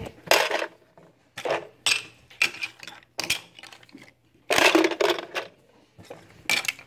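Hard plastic toy Oreo cookie pieces from a Fisher-Price game set down one at a time on a table, a string of separate clacks with a louder cluster about five seconds in.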